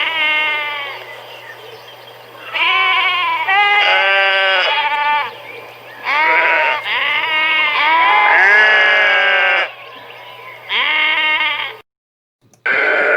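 Sheep bleating: a run of wavering, quavering bleats in several bursts, some overlapping, with a short clean break just before the end.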